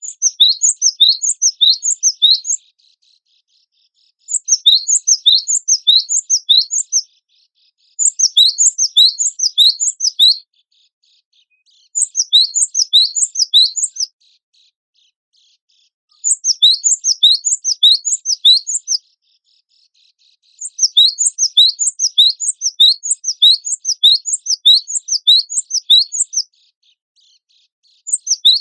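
Gelatik batu (cinereous tit) singing: phrases of rapid, high chirping notes, each phrase two to three seconds long, one near the end about six seconds long, with pauses of about a second and a half between them.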